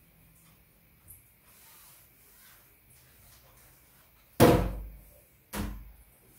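Quiet room, then two sudden bangs about a second apart, the first much louder and dying away over most of a second.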